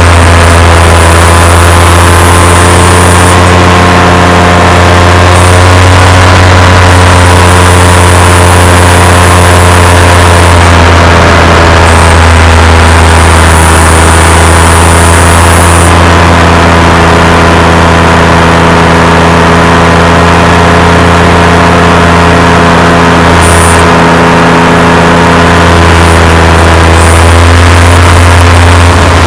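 Paramotor engine and propeller running steadily in flight, a loud even drone with small shifts in pitch as the throttle changes.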